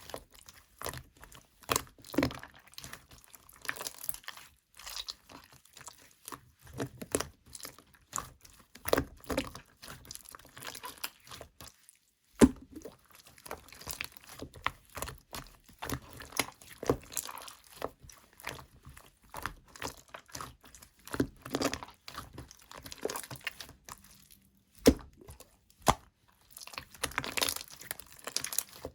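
Wet, crumbly pearl-dyed material being crushed and broken by hand: irregular crunches and crackles with short pauses between them, and one sharp crack about twelve seconds in.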